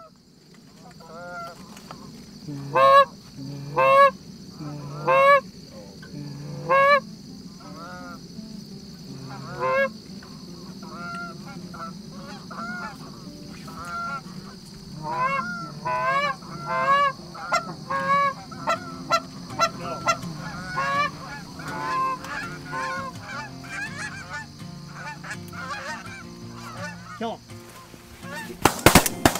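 Canada geese honking: single honks spaced about a second apart, then a quicker run of many overlapping honks from a flock. Just before the end, several shotgun blasts in quick succession.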